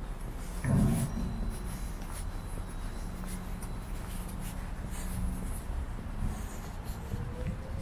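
Footsteps on a paved path, about two a second, with scratchy rubbing of the handheld recorder against hand or clothing. A dull low thump comes about a second in.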